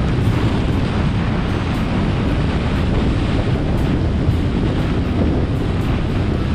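Wind buffeting a GoPro Hero7 Black's microphone while moving along a road: a steady, dense low rumble with no let-up.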